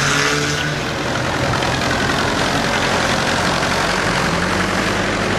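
Banger race cars' engines revving at the very start, then a tractor engine running up close, with a steady low drone.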